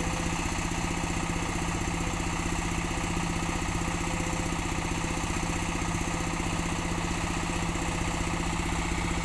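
Sumitomo hydraulic excavator's diesel engine running steadily at an even, idle-like speed, with no revving or load changes.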